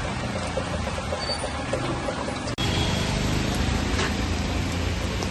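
Heavy rain pouring down, a steady hiss. The sound cuts out for an instant about two and a half seconds in and comes back slightly louder.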